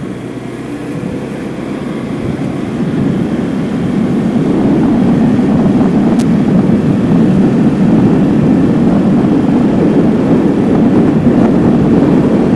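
Engine and road noise of a vehicle driving along a road, growing louder over the first few seconds and then holding steady. A faint click about six seconds in.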